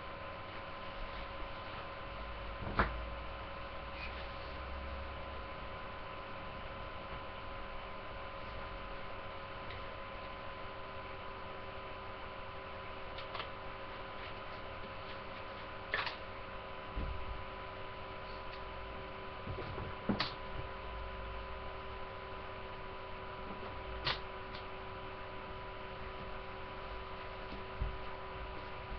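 Steady electrical hum with a few constant high tones, the self-noise of a webcam recording, broken by a few short, soft knocks.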